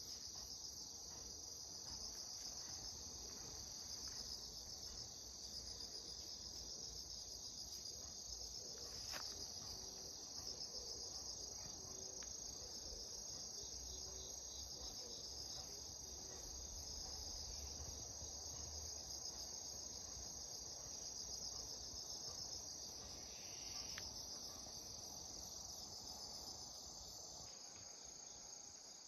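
Crickets chirping in a steady, high, continuous trill.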